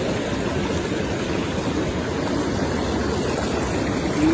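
Mountain stream rushing steadily over rocks, the flow high after a recent typhoon.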